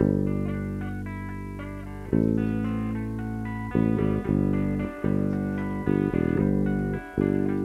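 Small rock band with guitar and bass guitar starting a slow song: long chords left ringing and fading, a new chord about two seconds in and again near four seconds, then changing faster. The recording has bad sound.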